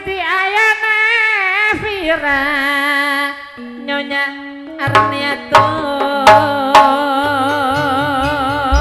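Madurese gending music: a high voice sings long, bending notes, then about five seconds in a few sharp drum strokes and low accompanying notes come in under a steady, wavering melody line.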